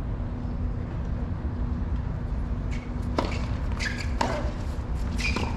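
Tennis ball pops on a hard court: sharp, short racket hits and bounces, the first about halfway through and then roughly one a second. Under them is a steady low hum and outdoor background noise.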